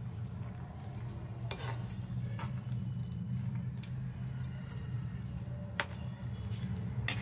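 A black cooking utensil stirring shrimp in a simmering tomato-butter sauce in a pan, with about five sharp clicks of the utensil against the pan. A steady low hum runs underneath.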